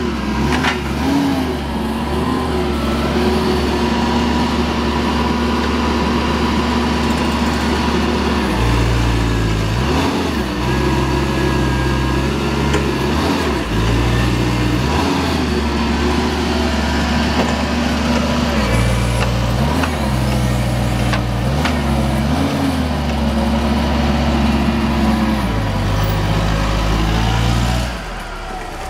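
Yale 5,000 lb forklift's propane-fuelled Mazda engine running, its speed stepping up and down again and again as the mast hydraulics raise and lower the forks. Near the end the engine drops back and quietens.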